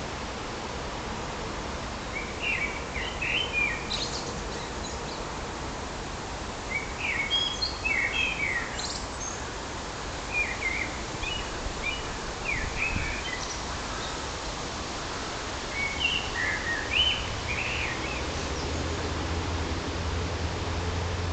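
Common blackbird singing: four short warbled phrases with squeaky high endings, a few seconds apart, over steady wind noise. A low wind rumble grows stronger near the end.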